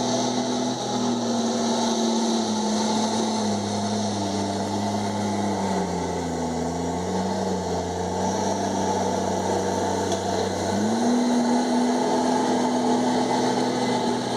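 Komatsu D51EX bulldozer's diesel engine running hard, its pitch sagging midway through and then climbing back up about three-quarters of the way in.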